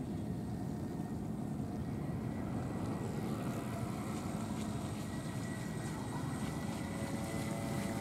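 Brushless electric motor of a 1 m RC model cruiser whining steadily as the boat approaches, growing slightly louder, with fuller tones near the end. Under it runs a steady low rumble of wind on the microphone.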